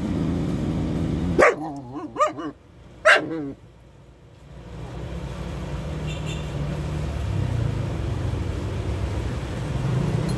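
A dog gives three short barks in quick succession, starting about a second and a half in, over a steady low rumble of passing traffic.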